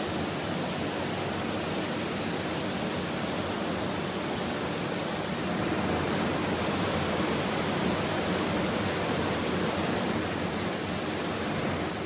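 The Rhine Falls, a large river waterfall, heard from close beside the falling water: a steady, unbroken rush of water.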